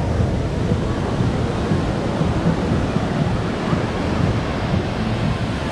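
Wind buffeting the microphone in a steady, gusty low rumble, with faint chatter from a crowd behind it.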